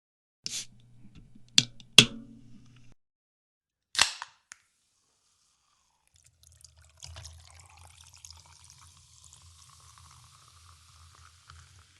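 An aluminium soda can is opened: a short hiss and two sharp clicks of the pull tab, then another short hiss. Then soda is poured over ice, fizzing and crackling, with the pitch of the pour rising slowly as the glass fills.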